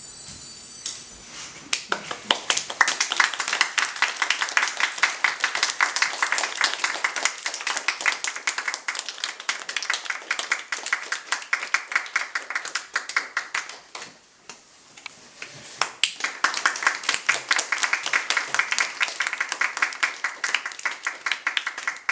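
A small audience clapping by hand. The applause starts about two seconds in, dies down briefly past the middle, then rises again for a second round near the end.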